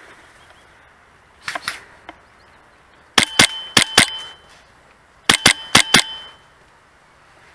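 PolarStar M4 HPA airsoft rifle firing: a quick group of three shots, then two strings of four sharp shots, each with a short ringing tone.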